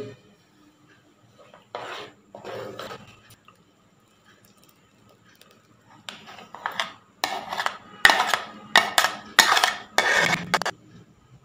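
A spatula scraping and clinking against a steel pot and a glass bowl while thick flaxseed kheer is poured out of the pot into the bowl. There are two short scrapes about two seconds in, then a quick run of about half a dozen from about six seconds in until near the end.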